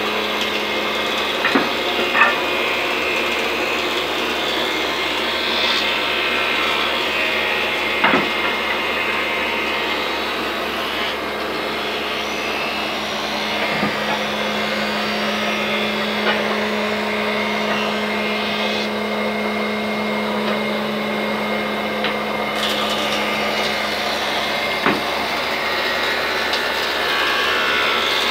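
Old cast-iron thickness planer running steadily with a constant hum while wooden strips are fed through and planed. A few sharp knocks come through, about five in all.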